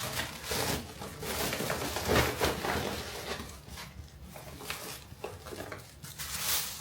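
Irregular rustling with light knocks and clatter, as vegetables and bags are handled.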